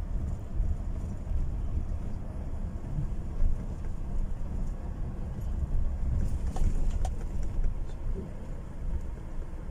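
Low, steady rumble of a car driving, heard from inside the cabin: engine and road noise, with a few faint ticks about two thirds of the way through.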